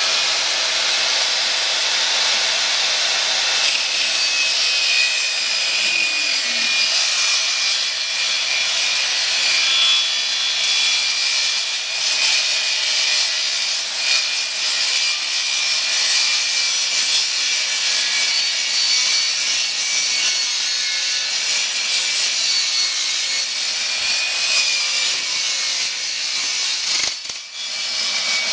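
Table saw running and cutting a board pushed through it lengthwise: a steady high whine with the hiss of the blade cutting wood, dipping briefly near the end.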